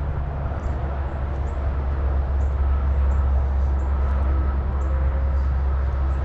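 Steady rumble of heavy interstate highway traffic, with faint tones riding on it.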